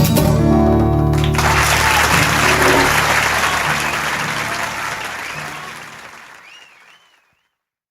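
The final acoustic guitar chord of the song rings out as audience applause breaks in about a second and a half in, with a wavering whistle near the end. The whole thing fades out.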